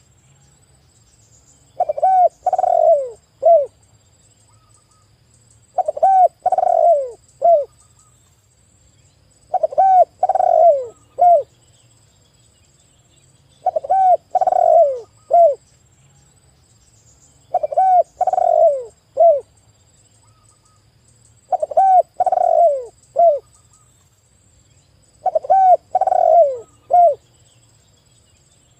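Spotted dove (tekukur) cooing. It gives a phrase of three or four falling coo notes, the last one short, and repeats it about every four seconds.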